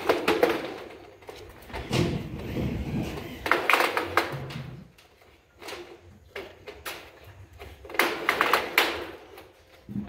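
Corrugated metal roofing sheet clanking and rattling under a hand tool in three bursts, about four seconds apart, each a quick run of sharp metallic clicks.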